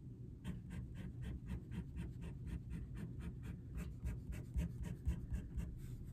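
Pen nib scratching on sketchbook paper in quick short strokes, about five a second, as a row of small hatching marks is drawn.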